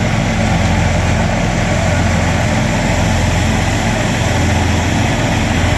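Ghazi tractor's diesel engine running steadily, a loud, even low hum.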